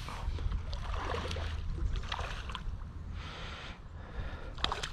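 Wind buffeting the microphone in a low, steady rumble, with irregular rustling and a few sharp clicks near the end.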